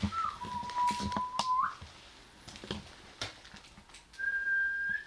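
Two thin whistled tones. The first lasts about a second and a half, dipping in pitch at its start and sliding up at its end. The second is higher and shorter, about four seconds in. A few light clicks or knocks fall between them.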